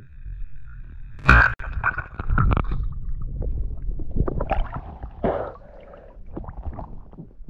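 Muffled water gurgling and bubbling, with a sharp knock about a second in and a run of crackling clicks after it.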